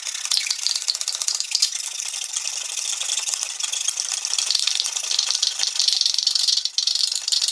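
Fine-tooth metal-cutting hand saw cutting through a PVC garage door weather strip in a miter box: a steady, high-pitched rasp of back-and-forth strokes.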